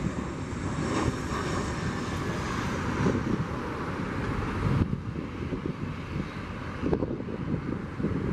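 Jet engines of a twin-engine airliner running steadily as it lands and rolls out, with a faint high whine over the first few seconds and wind buffeting the microphone. The sound changes abruptly about five seconds in.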